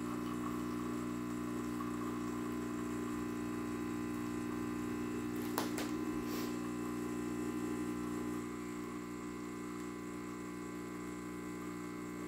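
Rocket Appartamento espresso machine's vibratory pump humming steadily while it pushes water through the E61 group during a shot. There is a brief click a little past the middle, and the hum gets slightly quieter after about eight seconds.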